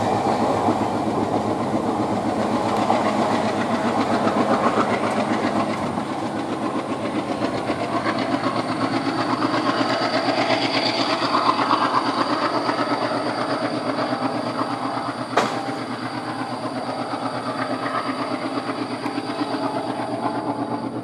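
Passenger coaches of an express train rolling past on the track, their wheels clattering steadily over the rail joints as the tail of the train moves away. A single sharp click sounds about fifteen seconds in.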